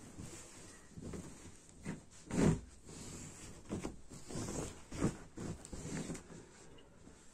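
Bedding rustling and swishing as a quilt is pulled and smoothed over a bed, in irregular bursts, the loudest about two and a half seconds in.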